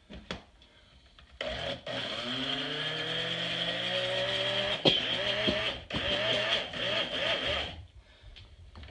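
Small countertop blender motor whipping two eggs. It starts about a second and a half in, its pitch climbing as it spins up. The run is broken briefly a couple of times, and it stops near the end.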